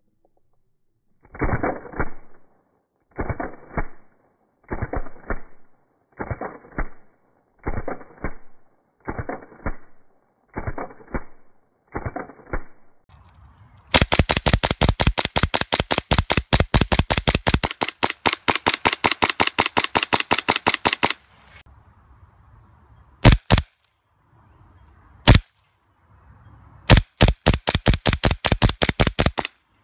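WE-Tech Desert Eagle gas blowback airsoft pistol firing, slide cycling with each shot. First comes a series of eight dull, muffled reports about a second and a half apart. Then a fast string of sharp cracks at about seven a second, two single shots, and another fast string near the end.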